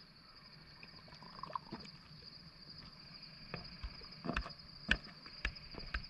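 A steady high-pitched trill of night insects, with a few scattered soft clicks and taps over it.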